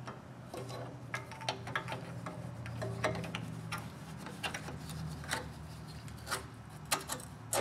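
Irregular light clicks, knocks and rubbing as a hand and sleeve work a new fuel filter into its clamp bracket, over a low steady hum.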